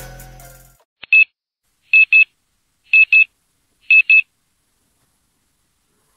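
Electronic wake-up alarm beeping: a single short high beep, then pairs of quick beeps about once a second, four times in all. Music fades out just before the beeps begin.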